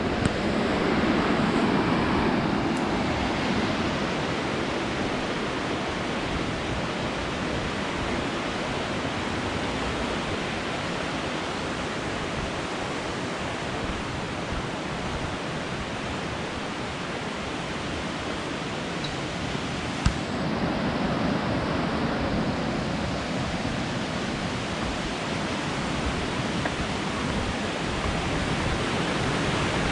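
Steady rushing of the Grand River's rapids in the gorge, an even noise of moving water that grows a little louder near the end. A single sharp knock about twenty seconds in.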